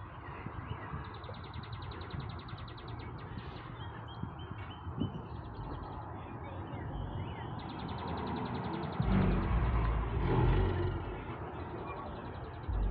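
Outdoor ambience of birds calling, including two fast, even trills of about two seconds each, over a steady low rumble that swells louder about nine seconds in.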